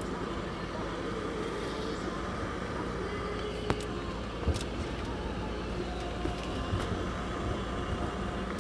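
Inside the cabin of a Zhiguli car driving on a wet road: steady engine hum and road noise, with a couple of short knocks about four seconds in.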